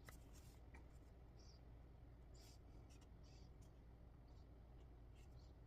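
Near silence with several faint, short scratchy rasps of embroidery thread being drawn through cross-stitch canvas.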